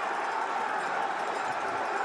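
A huge crowd cheering, a steady, unbroken wash of many voices.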